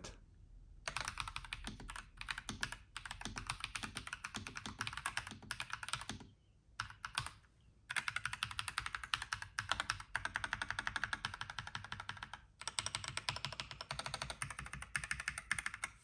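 Typing on a NuPhy Halo96 mechanical keyboard with Rose Glacier tactile switches: fast runs of keystroke clicks, broken by short pauses, the longest lasting a second or two about six seconds in.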